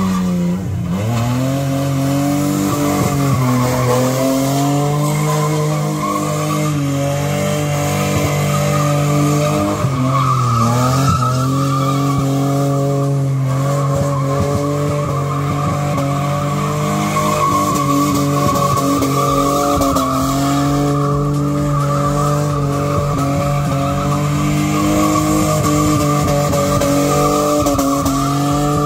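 Nissan R31 Skyline's RB30E straight-six held at high revs as the car spins donuts, rear tyres spinning and squealing on the asphalt. The revs dip briefly a few times and come straight back up.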